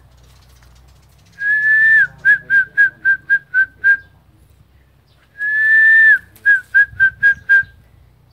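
A person whistling in two phrases, each a long held note followed by a quick run of short notes at about four a second on the same pitch. The whistling is of the kind used to hold a changeable lizard's attention while it is being noosed.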